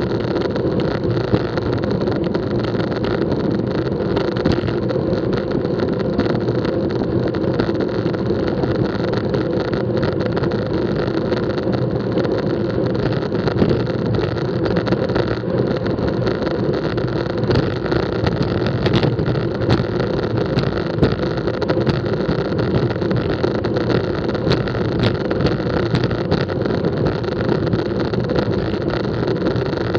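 Wind rushing over the microphone of a bicycle-mounted action camera, together with road-bike tyres rolling on asphalt: a steady rushing noise with scattered small clicks and rattles, more of them in the second half.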